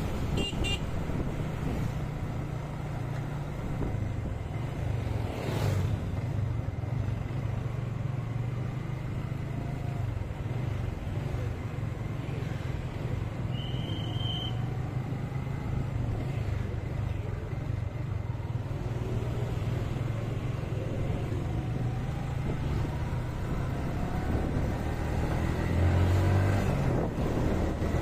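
Motorcycle riding along a road at steady speed: its engine and the road and wind noise make a steady low rumble, with other motorbikes and traffic passing. A short high beep comes about halfway through, and the rumble swells briefly near the end.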